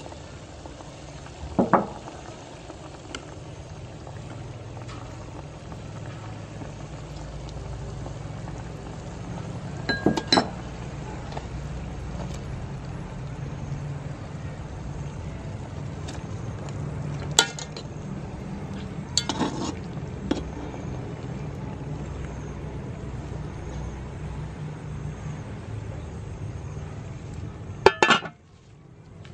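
A metal utensil knocking and clinking against a large aluminium cooking pot as a whole steamed chicken is turned in it: a handful of separate sharp clinks, the loudest a clank near the end. A steady low hum runs underneath.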